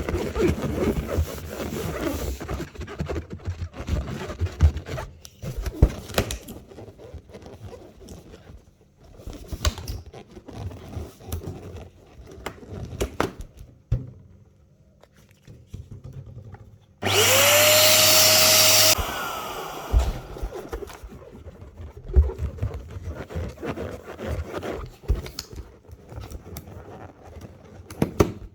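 Balloons being handled and inflated: irregular rubbing noise with scattered sharp clicks. About two-thirds of the way through, an electric balloon pump runs for about two seconds; its whine rises quickly, then holds steady before it cuts off.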